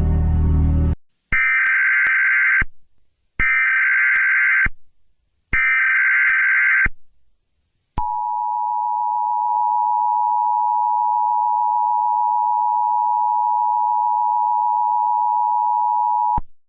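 Emergency Alert System SAME header data tones: three short bursts of rapid digital warbling with brief gaps, then the EAS two-tone attention signal (853 and 960 Hz together), held steady for about eight seconds and cut off near the end. Background music ends just before the first burst.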